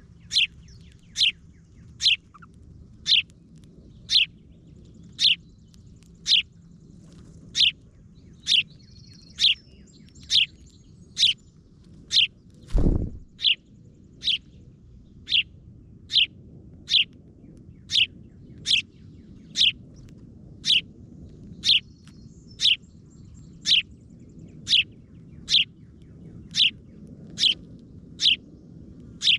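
A bird repeating one short chirp that falls in pitch, evenly about once a second. A single low thump about thirteen seconds in, over a faint low rumble.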